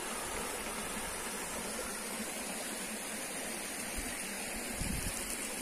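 Small rocky creek with clear water running over stones, a steady rush of flowing water. A couple of soft low thumps come near the end.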